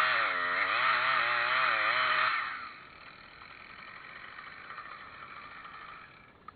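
Chainsaw engine running hard, its pitch wavering up and down, then stopping abruptly about two and a half seconds in. A fainter steady whine carries on for a few seconds after it, and a single click comes near the end.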